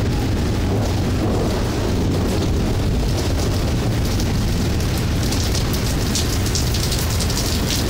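Steady, loud thunderstorm downpour with a heavy low rumble. From about halfway through, a sharp crackling of drops lies on top.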